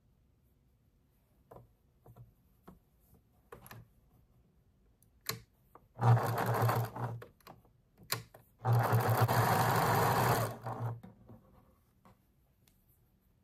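Electric sewing machine stitching a seam through quilting cotton in two short runs, about a second and then about two seconds long, with an even rapid needle rhythm. Small clicks and fabric rustles come before and between the runs.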